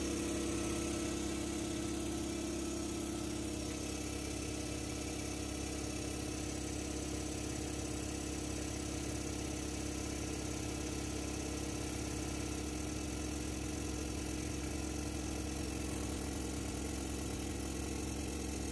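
Husky vertical air compressor running steadily, its electric motor and oil-lubricated piston pump pumping the tank up from a cold start.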